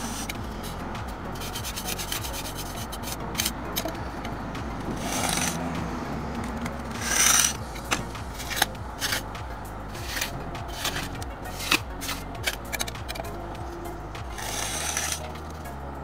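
Steel trowel scraping and cutting through a damp sand bed along the edge of a paving slab: a series of rasping scrapes, a few of them loud, with sharp little ticks of the blade between.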